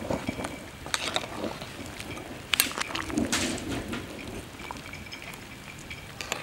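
A large pot of vegetable and meat soup boiling and bubbling, with a metal ladle stirring it and clinking against the pot a few times.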